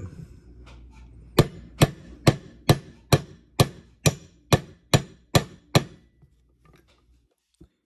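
A mallet tapping a 3/32 pin punch about eleven times at an even pace of roughly two strikes a second, driving the extractor pin out of a Taurus TH9 pistol slide.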